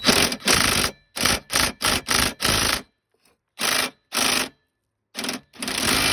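Small Craftsman drill driving a socket on a bolt, run in about ten short trigger bursts with a pause around halfway. It is struggling to turn a bolt that won't come loose.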